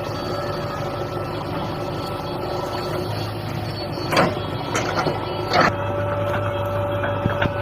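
Heavy diesel engine running steadily, with two short, sharp knocks about four and five and a half seconds in.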